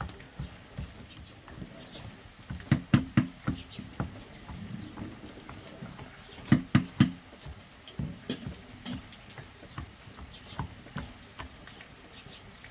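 Wooden pestle pounding into a steel jug: dull knocks in quick runs of three or four, with lighter strokes between.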